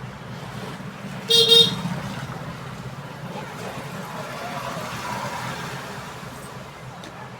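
A short, loud horn toot about a second in, over a steady low hum and faint traffic-like noise.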